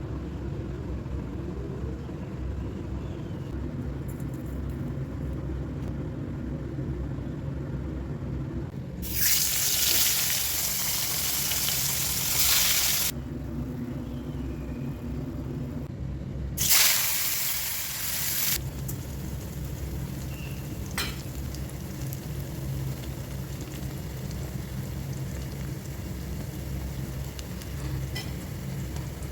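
Food frying in hot oil in a pan for a rohu fish curry, with a steady low hum underneath. About nine seconds in, a loud sizzle flares up and lasts about four seconds. A shorter, sharper sizzle comes about seventeen seconds in and lasts about two seconds.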